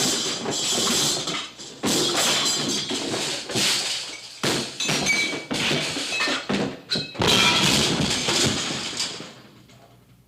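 Cartoon slapstick crash effects: a long run of tumbling, thudding and crashing noise over background music, dying away about nine seconds in.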